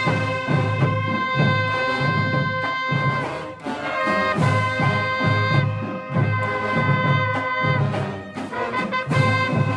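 A brass instrument playing a melody of held notes over a steady low beat.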